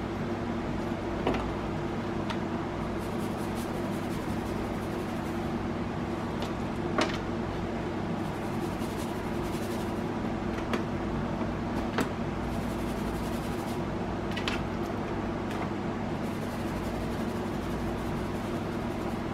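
A steady mechanical hum holding several low pitches throughout. A few light clicks and knocks, one every few seconds, come from food and a seasoning shaker being handled over a metal baking pan.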